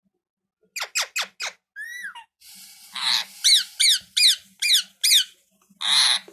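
Pet parrot calling: quick runs of short, sharp squeaks that drop in pitch, with two longer harsh squawks, one about three seconds in and one near the end.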